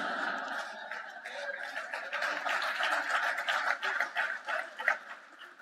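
Large audience laughing and clapping in response to a joke, swelling through the middle and dying away near the end.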